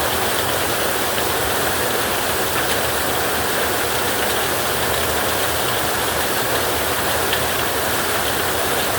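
Heavy rain drumming steadily on a tin roof: a dense, even hiss with faint drop ticks scattered through it.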